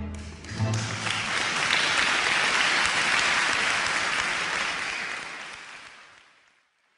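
Concert audience applauding at the end of a live tango performance, with the band's last low note ringing under the first second. The applause fades away to silence near the end.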